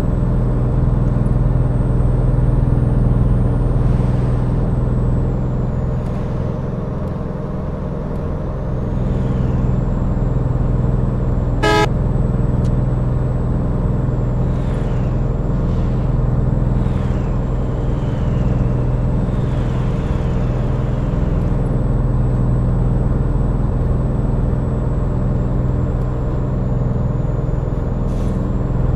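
A motor vehicle's engine running steadily while on the road, with one short horn toot about twelve seconds in.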